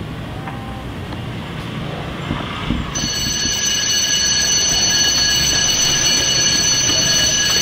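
Electric school bell ringing steadily: a high, many-toned ring that starts suddenly about three seconds in, over a steady low background noise.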